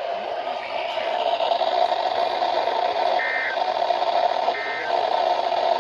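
Weather radio receiver static hiss, broken by short warbling data bursts of an Emergency Alert System end-of-message code: two bursts about a second and a half apart, with a third starting at the very end.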